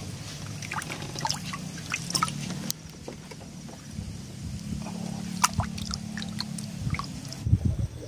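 A boat motor running steadily on the water, with small splashes and clicks scattered over it.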